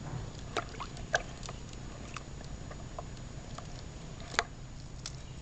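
Metal forceps clicking and scraping against barnacle shells on a sea turtle's carapace: about ten small, sharp, irregular ticks, the loudest a little past four seconds in, over a steady low hum.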